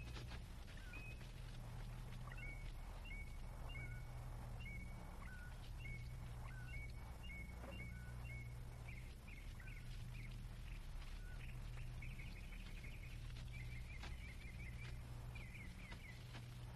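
Faint field ambience: small birds chirping in short, repeated high calls, often stepping down in pitch, with a quick trill near the end, over a steady low hum.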